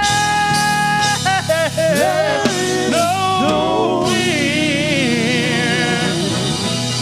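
Live gospel music: a lead singer holds a long note, then sings bending, wavering runs over the band's steady bass accompaniment.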